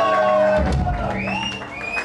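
Live rock band finishing a song on a held chord with a final low hit about half a second in, followed by the crowd cheering and whooping.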